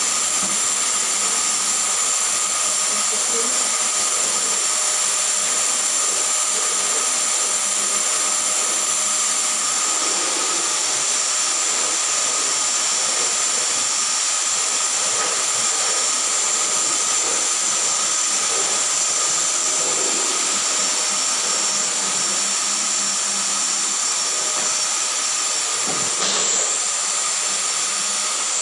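Drum-style canister vacuum cleaner running steadily: a constant rush of suction with a high motor whine.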